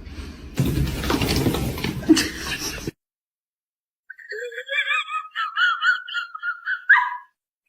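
A stretch of loud, pitchless noise cuts off abruptly about three seconds in. After a second of silence comes high-pitched giggling laughter with a wavering pitch, lasting about three seconds.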